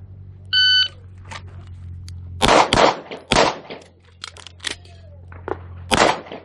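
Electronic shot timer beeps once about half a second in, then a Beretta 92G 9mm pistol fires several shots about a second or more apart, with some fainter cracks between the loud ones.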